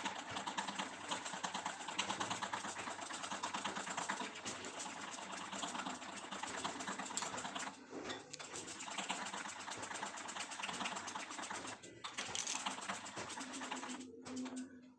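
Spoon beating thick rice-and-urad-dal batter against the sides of a glass bowl: a fast, continuous run of clicks and wet slaps, with short breaks about eight and twelve seconds in, dying away near the end.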